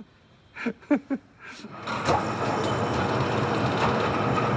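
A man laughs briefly. From about two seconds in, steady machinery noise with a constant whine runs on, typical of machines running in a railway workshop.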